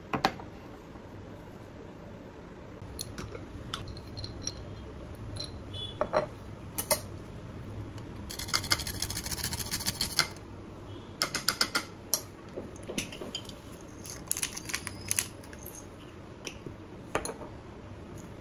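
A whole nutmeg scraped against a handheld metal grater over a ceramic bowl. There is a continuous rasping for about two seconds midway, then a run of short quick scrapes. Scattered clicks and taps come from glass spice jars and the grater being handled.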